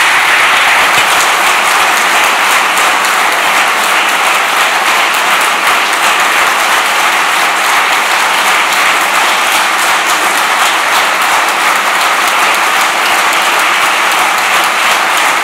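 Audience applauding: many hands clapping in a dense, even patter that holds at a steady level.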